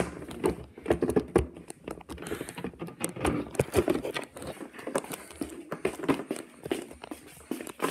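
Handling noise from a phone carried by hand while walking: irregular taps, knocks and rustles as fingers shift on the phone, with a few dull thumps.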